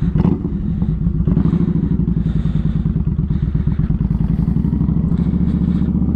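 Motorcycle engine running steadily at an even speed, with a rapid regular firing pulse.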